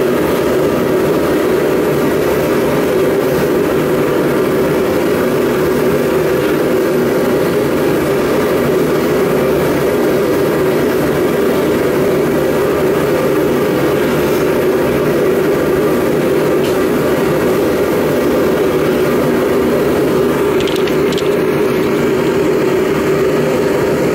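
A forge running at full heat while a steel bar heats in it: a steady, loud rushing noise of the burner and blower with a low hum. A couple of faint clicks come near the end.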